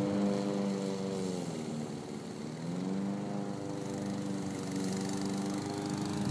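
Walk-behind lawn mower running steadily as it cuts. Its pitch sags about a second and a half in and picks back up a second later, the motor slowing under load in tall, overgrown grass.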